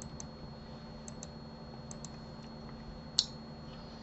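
Light clicks of a computer mouse and keyboard while working in 3D modelling software: three quick pairs of clicks in the first two seconds, then a single louder click about three seconds in, over a faint steady hum.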